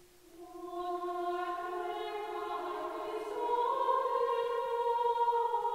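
Slow choral music: voices holding long sustained notes that swell in from near silence and step up in pitch about halfway through.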